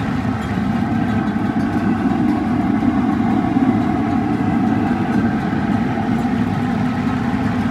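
Oil sizzling and bubbling as chicken deep-fries in a large blackened pot, over a steady, unchanging low rumble.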